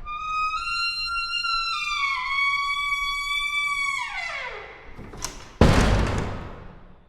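Old wooden door's hinge creaking in a long, high squeal that wavers in small steps, then slides down in pitch and fades. About five and a half seconds in there is a sudden loud thump that dies away over a second or so.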